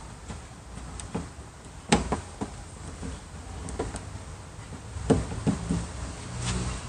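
A few sharp clicks and knocks from hands working a newly fitted car door handle and its lock parts. There is a pair about two seconds in and another cluster about five seconds in.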